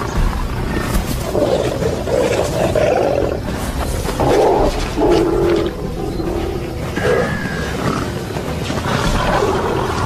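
Lions growling and snarling in a run of loud, rough outbursts while attacking Cape buffalo, with background music underneath.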